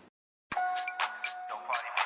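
Half a second of silence, then a programme-segment intro jingle starts abruptly: music with a quick steady beat, about four hits a second, under held high notes.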